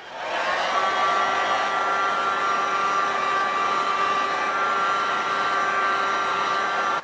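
Electric heat gun switching on, running with a steady whining blow of hot air, and cutting off sharply near the end. It is heating a felt ear so the felt softens and can be bent into shape.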